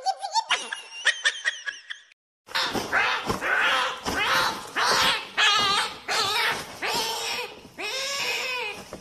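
A run of loud, drawn-out cries, one after another about every second, each bending up and down in pitch, after a brief stretch of speech that cuts off about two seconds in.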